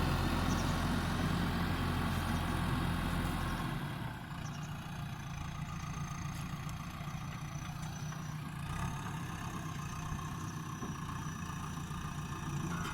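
JCB backhoe loader's diesel engine running steadily, easing off to a lower, quieter run about four seconds in.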